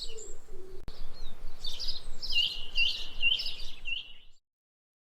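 A songbird chirping, a series of short high notes that each fall in pitch, about two a second, then cutting off suddenly about four seconds in.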